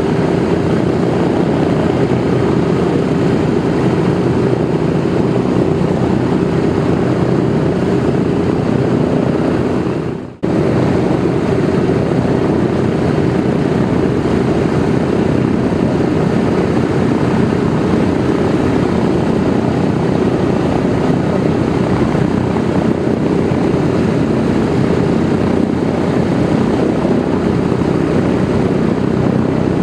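Douglas DC-3's Pratt & Whitney R-1830-92 twin-row 14-cylinder radial engines running steadily, a loud, even propeller drone. About ten seconds in, the sound fades and cuts out for a moment, then resumes at the same level.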